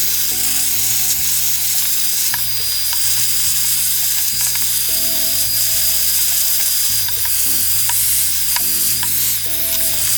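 Vacuum cleaner running steadily inside the open laptop, a loud airy hiss with a thin high whine and a few scattered light ticks, over background music.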